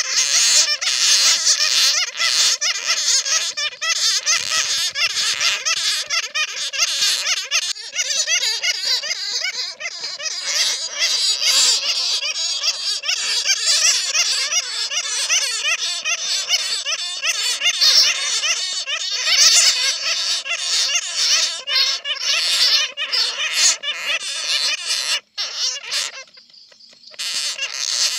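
Dense, continuous high-pitched squeaking and chattering of many bats, a recording of bats caught in a net that is played as a lure call to draw bats in. It drops away briefly near the end.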